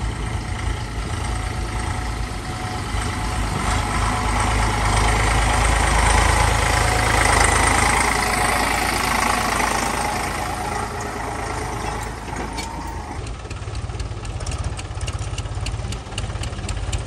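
Eicher tractor's diesel engine pulling a loaded trolley, growing louder as it passes close by, then fading. In the last few seconds an engine runs with a rapid clicking clatter.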